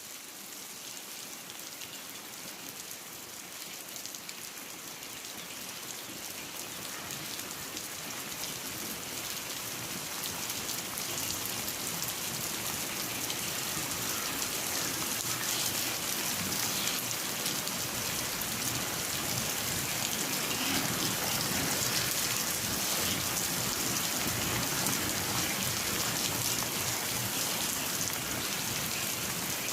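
Rain falling steadily as a dense hiss of drops, growing louder and heavier over the first half, then holding steady.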